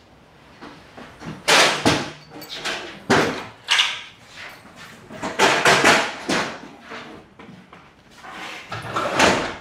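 Several sharp knocks and bangs of work on a building site, about two a second at times, with indistinct voices between them.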